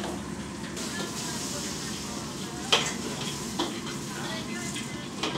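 Bok choy sizzling in a hot wok as it is stirred and tossed with a metal wok ladle. The ladle knocks sharply against the wok a few times, the loudest strike a little over halfway through.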